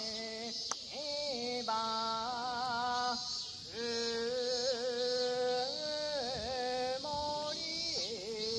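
Geibikei boatman singing a traditional Japanese boat song (funa-uta) unaccompanied, in long drawn-out phrases with wavering, ornamented held notes.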